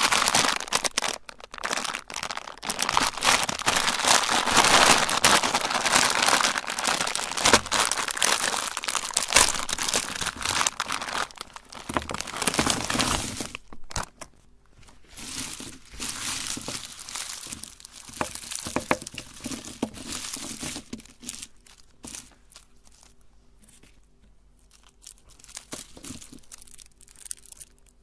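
Plastic candy wrappers crinkling and tearing as candies are unwrapped, with dense continuous crackling for about the first half and scattered bursts after that.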